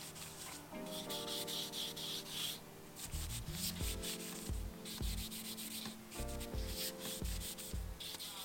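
Cloth rubbing along a wooden bicycle rim in quick repeated strokes, wiping on a tung oil finish. Background music with sustained notes plays under it, and a steady beat comes in about three seconds in.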